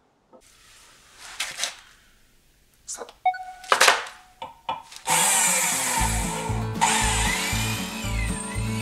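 A few short handling sounds and a brief beep. About five seconds in, an electric hand drill starts up and bores into stainless steel with a 5 mm cobalt high-speed-steel bit, running loud and steady. Background music with a steady low beat comes in just after the drill starts.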